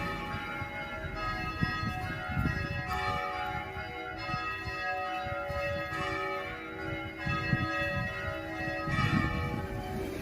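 Greek Orthodox church bells ringing, several bells struck again and again so that their tones overlap and keep sounding.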